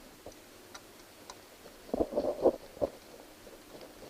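Scattered small metal clicks, then a short clatter of clicks and knocks about two seconds in, from hands and a screwdriver working the spring clamps of a distributor cap.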